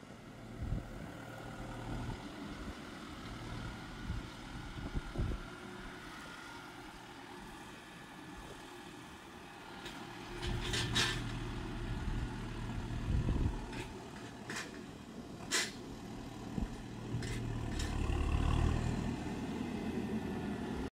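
Farm tractor engines running as tractors carry wrapped silage bales along a gravel track. The low engine drone grows louder about halfway through and again near the end as a tractor approaches. Several sharp knocks and clanks sound in the second half.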